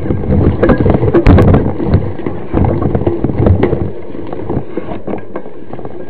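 Mountain bike jolting over a rough dirt trail: a dense run of rattles and knocks from the bumps, with wind noise on the microphone. It is heaviest in the first four seconds, then eases.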